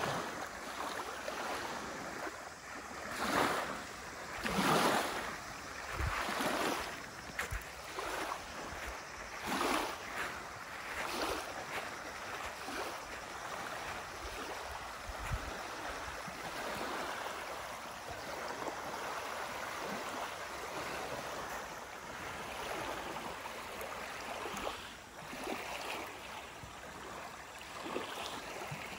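Small lake waves lapping and washing onto a gravel shore. A few louder rushes come in the first dozen seconds, then the wash settles into a steadier, even lapping.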